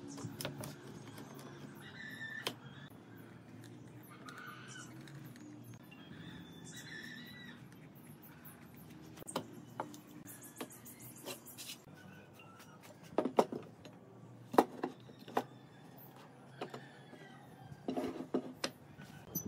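Clamps and wood being handled on a workbench: scattered sharp clicks and knocks of metal clamp parts and boards, most of them in the second half, as a glued wooden frame is set into pipe clamps.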